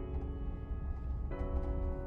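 Background music: held piano or keyboard chords, changing to a new chord about a second and a half in, over a steady low rumble.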